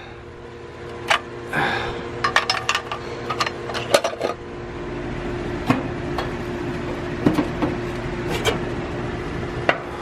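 Metal clicks, knocks and light clattering from an air-conditioner's pull-out disconnect and the condenser's sheet-metal service panel being handled and taken off, over a steady low hum.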